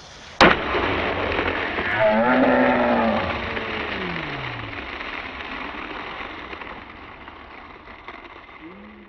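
The soundtrack's closing: a sudden loud crash, then a long wash of sound that slowly fades, with low drawn-out tones sliding downward about two to four seconds in and again near the end.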